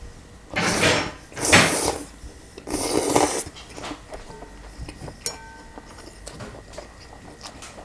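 Three loud slurps of cold kimchi noodles and broth in quick succession, each about half a second long, followed by a few light clinks of a utensil against the bowl.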